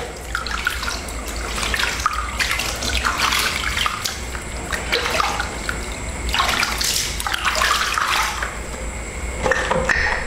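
Water splashing and dripping as a hand scoops water from a plastic basin and pours it over a newborn monkey, coming in several separate splashes.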